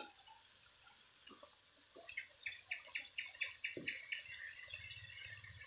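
Thin-sliced beef sirloin simmering and sizzling in its sauce in a wok, with light crackling and popping, and a knock of the tongs against the pan at the very start. About two seconds in comes a quick run of short high chirps.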